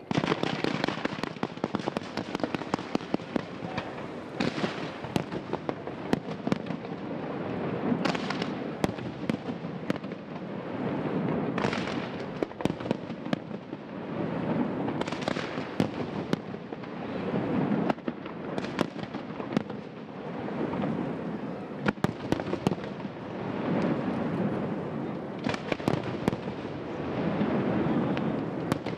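Aerial firework shells bursting in a display: many sharp bangs come one after another, with crackling noise that swells and fades every few seconds.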